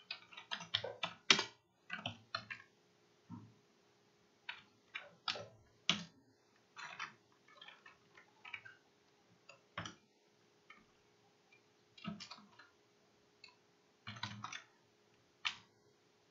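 Computer keyboard being typed on: irregular key clicks in short runs with pauses between, over a faint steady hum.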